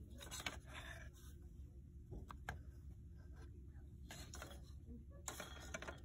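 Faint indoor shop ambience: a steady low hum with a few short rustles and a couple of light clicks.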